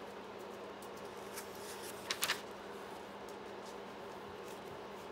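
Old paper sheets rustling briefly as a page is lifted and turned back, about two seconds in, over a steady low hum.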